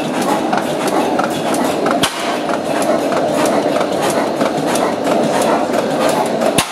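Fielding & Platt stationary oil engine running, a steady mechanical din with an even, rapid clatter of knocks and two louder knocks, about two seconds in and near the end.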